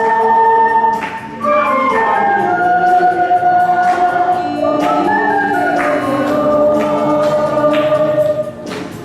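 Ocarina ensemble playing a slow melody in several-part harmony with long, held notes. It grows quieter near the end.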